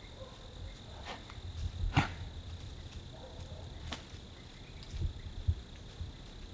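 Insects trilling on one steady high note, with three sharp clicks, the loudest about two seconds in, and two soft low thumps near the end.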